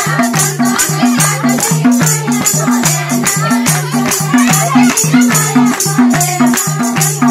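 Nepali folk music: a madal hand drum beats a steady rhythm on two alternating low notes, with crisp high strokes and a guitar playing along.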